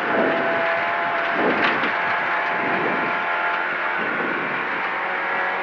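Ford Fiesta rally car's 1.6-litre engine running steadily at speed, heard from inside the cabin.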